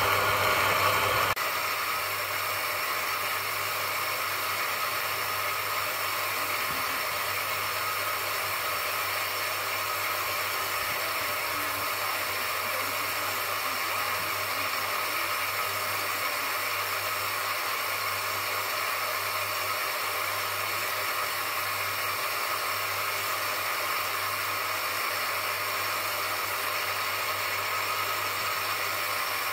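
Bench grinder motor running steadily with a constant hum and whir while a small agate cabochon is held against its spinning polishing wheel. The sound drops a step in loudness about a second in, then holds even.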